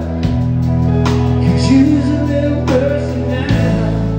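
Live rock band playing a slow song: electric guitar, bass and drums under a man's lead vocal. Held low notes change chord about a quarter second in and again near the end, with drum hits marking each change.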